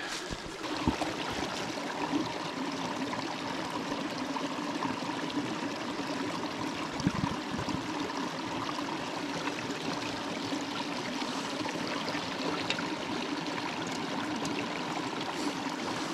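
Small hill stream trickling steadily over stones, with a water bottle being dipped into it and filled.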